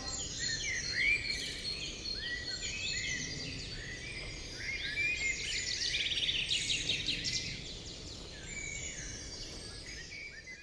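Several songbirds chirping and whistling, many short calls overlapping over faint background noise; the calls fade out near the end.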